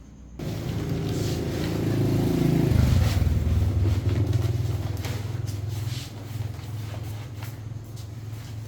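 A small engine starts abruptly and runs fast at first. About two and a half seconds in its pitch drops, and it settles into a steady, lower-pitched run.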